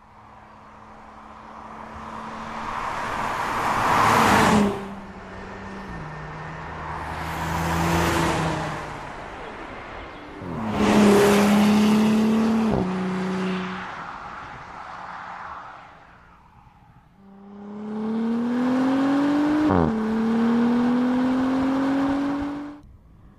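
2018 Audi SQ5's turbocharged V6 engine in several drive-by passes, each swelling as the SUV approaches and dropping in pitch as it goes past. Near the end it pulls hard under acceleration with a rising engine note, dips briefly at an upshift, climbs again, then cuts off suddenly.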